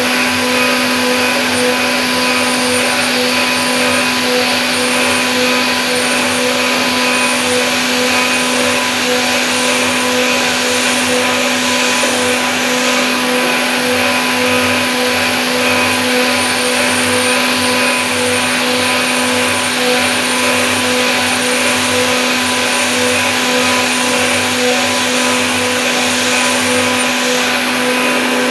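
A PA1070V3 Z300 CNC milling machine's spindle running at high speed with a steady whine during thread milling. A low pulsing hum joins about halfway through.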